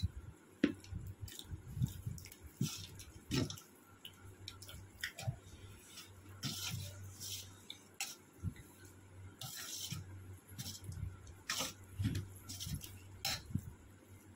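Close, wet chewing and lip-smacking of people eating curry and rice by hand, with soft squelches of fingers mixing the food; the smacks come irregularly, several a second.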